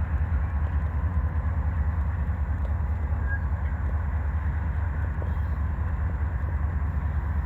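Diesel-hauled freight train being shoved slowly along the track, a steady low rumble with a few faint clicks from the moving cars.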